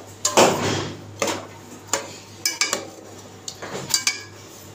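Steel fork stirring thick gravy in an aluminium pot, clinking and scraping against the pot's sides about half a dozen times. The longest and loudest scrape comes just under a second in.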